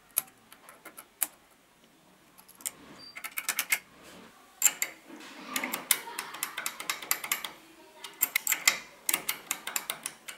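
Small metal parts clicking and rattling in a Makita TD021D's quick-release hex chuck as it is reassembled and a hex bit is pushed in and worked in it. A few single clicks come first, then several quick runs of clicking.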